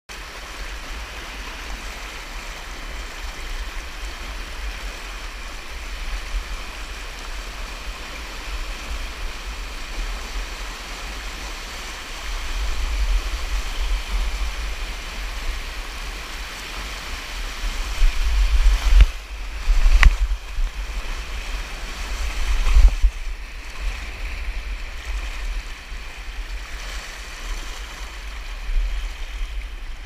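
Creek whitewater rushing and splashing over a bare rock slide, heard close up from a camera carried down the chute, with heavy low buffeting on the microphone. About two-thirds of the way in it surges louder for a few seconds, with a sharp knock among the surges.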